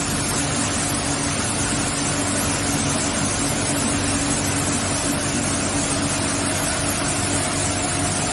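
Machinery of a PET bottle recycling washing and drying line running steadily: a constant dense noise with a low, steady hum underneath.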